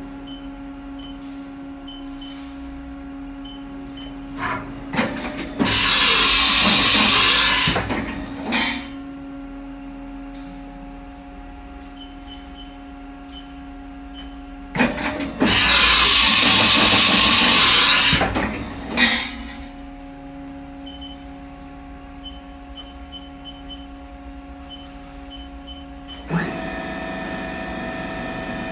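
Haas Super Mini Mill running through automatic tool changes: clicks and clunks from the side-mount tool changer and spindle, and two loud hisses of compressed air about two seconds long each as a tool is released and clamped, over a steady machine hum. Near the end a steady multi-tone whine starts suddenly as the spindle starts running.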